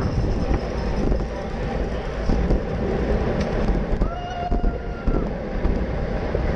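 Wind rushing over a racing bicycle's GoPro microphone, with tyre and road noise, while riding at about 20 mph. A brief steady tone with overtones sounds about four seconds in and lasts about a second.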